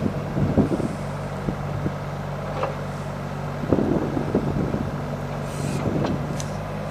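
Doosan DX35Z mini excavator's diesel engine idling steadily, with a few light knocks over the top.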